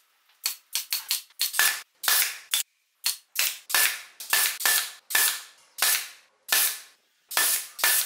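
Pneumatic brad nailer firing again and again as it drives nails into thin wooden roof slats: about twenty sharp shots, some in quick pairs, with brief gaps between bursts.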